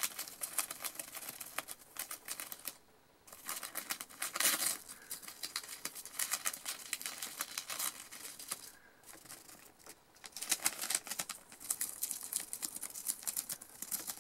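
A gerbil gnawing lined notebook paper: rapid dry crunching and crinkling of the paper, with short breaks about three seconds and nine seconds in.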